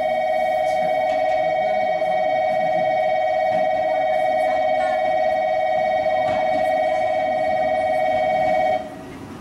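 Station electronic bell ringing in one steady, trilling tone for about nine seconds as a train approaches the platform, cutting off suddenly near the end.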